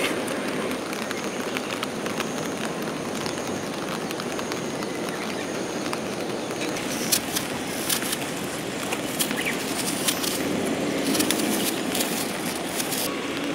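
Steady rain falling, an even hiss and patter, with sharper ticks of single drops scattered through the second half.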